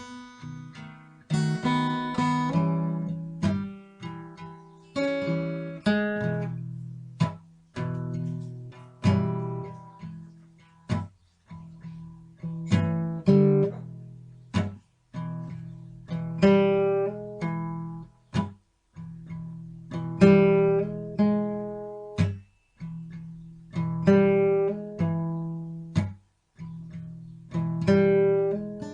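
Background music: acoustic guitar, strummed and picked, with chords ringing and fading one after another.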